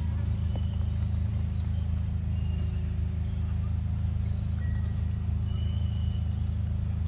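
A steady low rumble with no breaks, and a few short high chirps from birds over it.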